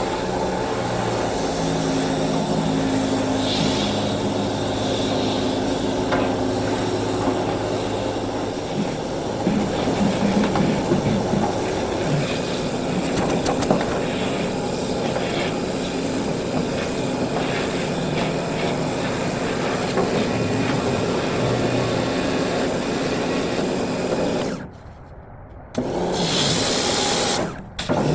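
Pressure washer running, its high-pressure water stream spraying into a rusty steel gas tank to blast out scale and dirt. It is a steady, loud hiss that cuts out for about a second near the end, then starts again and stops once more briefly.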